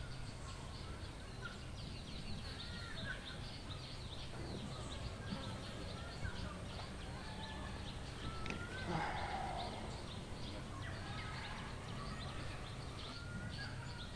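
Outdoor ambience of many small birds chirping continuously, with scattered longer calls, over a steady low hum. A somewhat louder call comes about nine seconds in.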